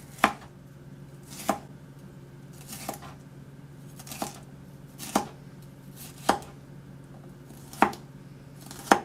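Kitchen knife slicing through a bell pepper and knocking on the cutting board: about eight separate cuts, roughly one a second.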